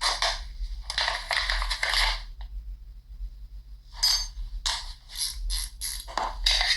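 Quick sharp metallic clicks and clinks from pistols being handled, in two clusters with a pause of about a second and a half between them.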